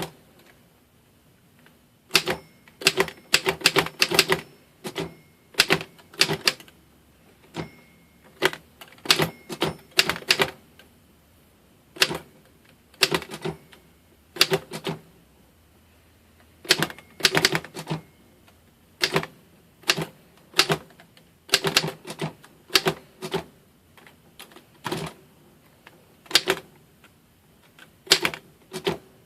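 Royal No. 5 manual typewriter, made over 100 years ago, being typed on: sharp key strikes in irregular bursts with short pauses between them.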